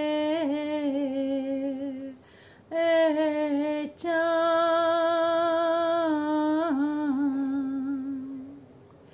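A woman's unaccompanied voice chanting an Urdu salaam, holding long drawn-out vowels rather than words. Three held notes with short breaths between them, each dropping to a lower pitch near its end; the last is held for about four seconds.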